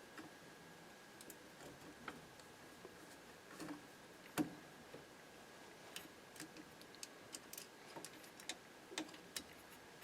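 Faint, scattered small clicks and taps of a screwdriver and small metal parts being worked while screws are taken out of a steering column, with one sharper click about four and a half seconds in.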